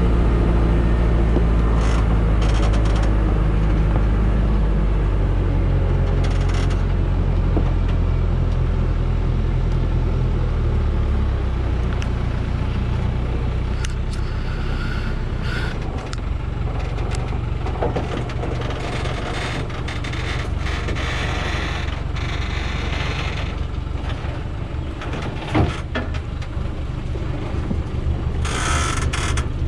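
Diesel engine of a Dongfeng truck loaded with logs, labouring at low speed on a steep rocky track, its pitch dropping in two steps in the first ten seconds or so. Chained tyres crunch over stones, with scattered clicks and knocks.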